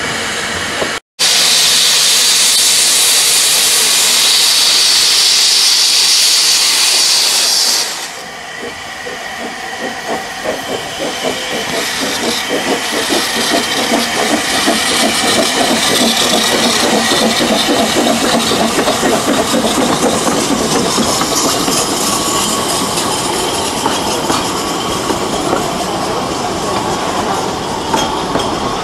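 Narrow-gauge steam locomotive letting off a loud, steady hiss of steam, which cuts off abruptly about eight seconds in. After that the locomotive and its carriages roll past with a rapid rhythmic clatter.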